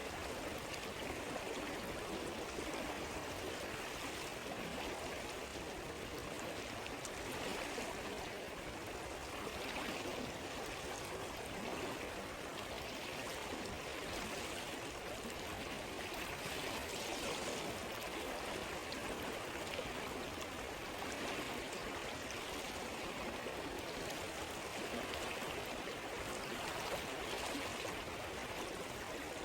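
A stream flowing steadily over stones, with a few faint crackles of a campfire.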